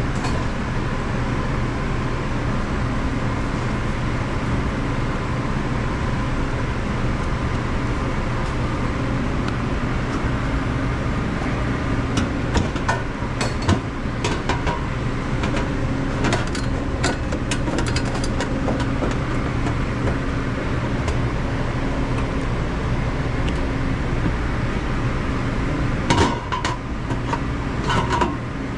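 Steady hum of commercial kitchen machinery, with scattered sharp metal clinks and taps from about twelve seconds in and again near the end.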